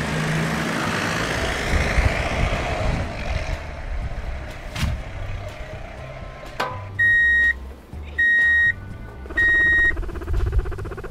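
Dry hay rustling as it is tipped out of a plastic toy dump truck, a couple of knocks, then three loud, evenly spaced reversing beeps, each about half a second long.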